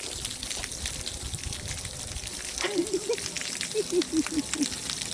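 Creek water rushing steadily. Midway there are two quick runs of short, squeaky pitched calls, about ten in all.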